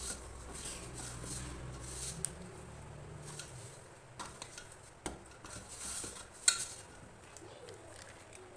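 Hand mixing and kneading flour and curd into dough in a stainless steel bowl: soft squishing and rubbing, with scattered light clicks of the hand and dough against the metal and one sharper click about six and a half seconds in.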